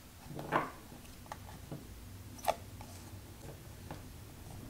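Thin, glossy oracle cards handled through a deck: a card slides across the others with a short scratchy rasp about half a second in, then soft ticks of card edges and one sharper tick about two and a half seconds in.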